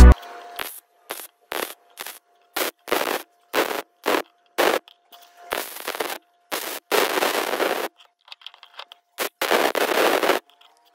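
MIG welder crackling in about a dozen short bursts, tack-welding a steel flange onto a wheel axle. The bursts run from a fraction of a second to about a second, with a faint steady tone in the gaps between them.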